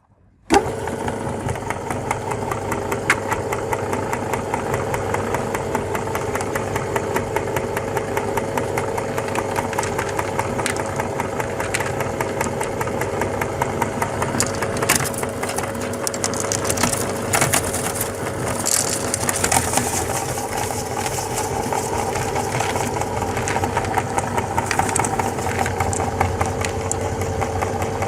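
Electric meat grinder switching on about half a second in, then running steadily with a motor hum and fine crunching and crackling as hard candy is ground, a little louder in patches partway through.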